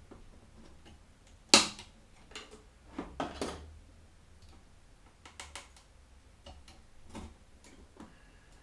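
Scattered small clicks and taps of handling a motherboard's CPU socket while the processor is secured in it. The loudest is a sharp click about a second and a half in.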